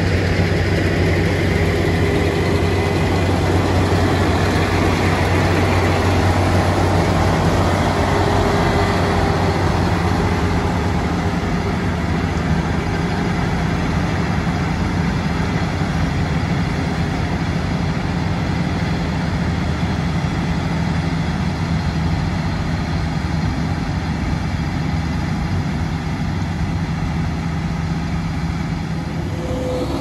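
Claas Lexion 8900 combine harvester working in barley: a steady low engine drone over broad mechanical noise, growing slightly fainter over the second half as the machine moves away.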